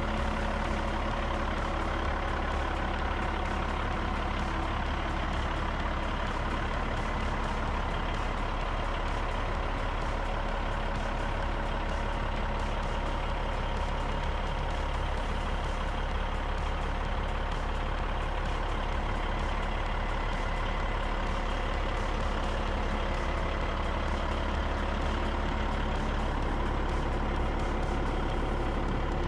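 Diesel semi-truck engine idling steadily.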